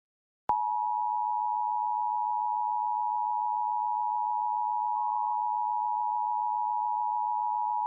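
Emergency Alert System attention signal: two steady tones of 853 and 960 Hz sounding together. It comes from a VIAVI EASyCAP encoder and starts with a click about half a second in, after a short silence.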